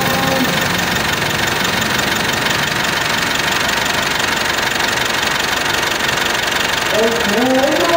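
Mitsubishi Pajero engine idling steadily during an idle relearn.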